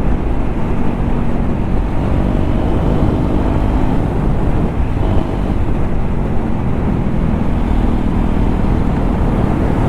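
KTM Duke 390's single-cylinder engine running with the dB killer removed from its exhaust, cruising at a steady pace while ridden.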